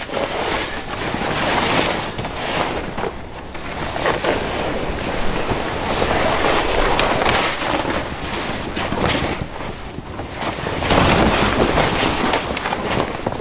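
The insulated fabric of an Eskimo FatFish 949i pop-up ice shelter rustling in long, swelling stretches as it is handled and its hub walls are pulled out.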